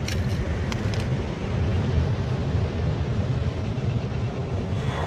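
Seashore ambience: a steady low rumble of surf and wind, with a few light clicks in the first second.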